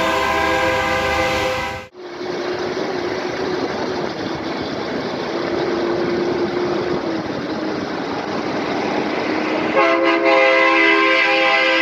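Multi-note air horn blasting a steady chord that cuts off abruptly about two seconds in. A steady noisy vehicle rumble follows, then the horn sounds again for the last two seconds.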